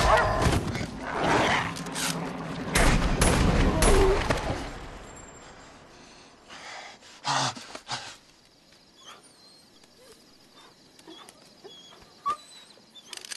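Dogs fighting: snarls, yelps and sharp impacts, loud and chaotic for the first four seconds or so. It then dies away to a low hush with a few faint ticks and one sharp click near the end.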